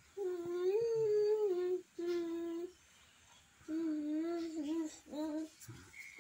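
A young child humming a slow tune in long held notes, four phrases with short breaks between them.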